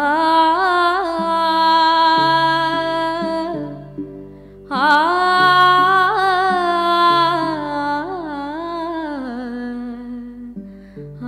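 A woman singing a wordless alap: two long held, ornamented phrases with slides and shakes in pitch, the second gliding down near the end, over a steady tanpura drone.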